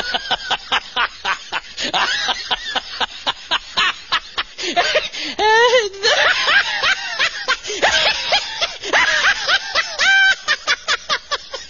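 Laughter in quick, repeated snickering bursts, with short pitched vocal cries mixed in.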